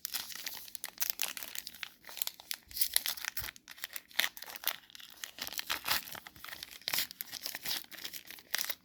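Crinkling and rustling of a trading card pack wrapper and cards being handled, a rapid irregular run of crackles.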